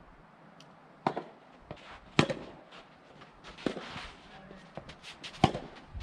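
Soft tennis rubber balls struck by rackets: four sharp hits at uneven intervals, with lighter clicks and scuffing between them.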